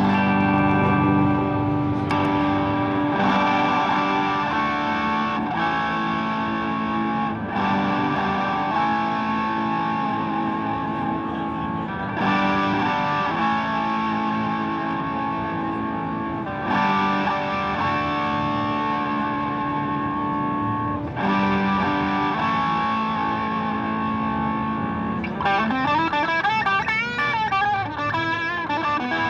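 Electric guitar played through the Animals Pedal Vintage Van Driving Is Very Fun overdrive, with sustained, lightly driven chords changing every few seconds. Near the end the notes waver in pitch.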